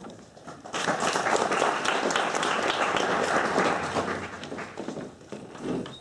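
Audience applauding: many hands clapping that starts about a second in and dies away after about four seconds.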